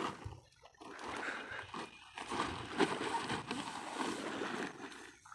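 Shallow muddy water sloshing and splashing, uneven and continuing, as someone wades and works at the edge of a flooded field.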